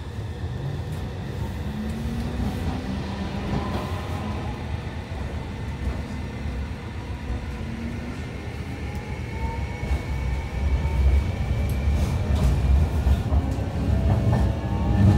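Sapporo tram 8510-series car's Mitsubishi IGBT VVVF inverter and traction motors whining as the tram pulls away, several tones rising in pitch over the rumble of wheels on rail, heard inside the car. The running noise grows louder in the second half.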